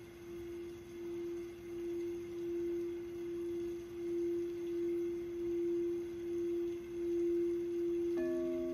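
A singing bowl sung around its rim, holding one steady tone that swells and fades in a slow, wavering pulse. Near the end a second, lower-pitched bowl is struck and rings out alongside it.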